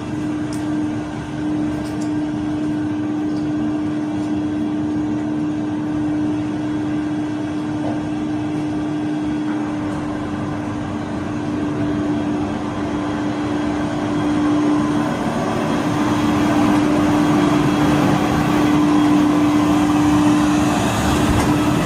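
A motor running steadily, with a constant hum over a rushing noise that grows a little louder about two-thirds of the way through.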